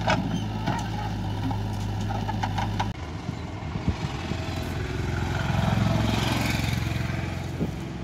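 Diesel tractor and backhoe engines running steadily, with a few sharp clanks. About three seconds in the sound cuts to a different diesel engine running with a pulsing beat, swelling louder and fading back near the middle.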